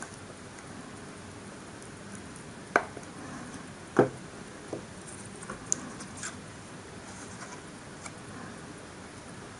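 Two sharp knocks on a tabletop about a second apart, then a few lighter clicks and the faint handling of card as a printed card panel is glued and pressed onto a small cardboard box, over a steady low hiss.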